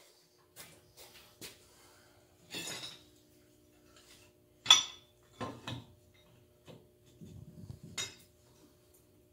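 Irregular metal clinks and knocks of hand tools and parts being handled at a compact tractor's front axle spindle, the sharpest about halfway through.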